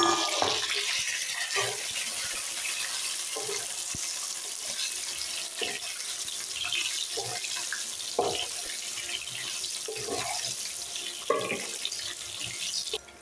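Boiled hog plums sizzling in hot oil with fried onion and garlic in a nonstick wok, a steady frying hiss. A wooden spatula stirring them scrapes and knocks against the pan every second or two.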